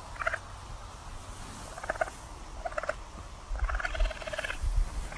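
Young raccoon chittering: four short trilled calls, the last and longest about a second long.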